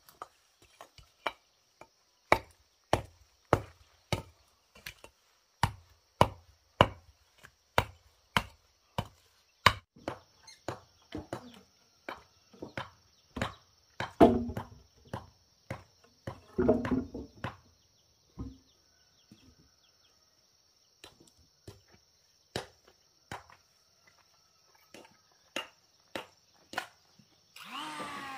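A steel hammer striking old bricks again and again, about two sharp strikes a second, chipping off the old mortar. Partway through, heavy wooden beams knock and thud as they are shifted, with a few scattered knocks after, and near the end a handheld power tool spins up with a rising whine.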